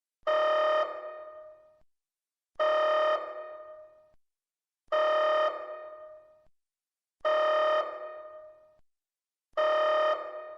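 Electronic alert tone sounding five times, evenly spaced about two and a half seconds apart, each a steady pitched tone that rings out and fades. It heralds an incoming fleet-wide red alert broadcast.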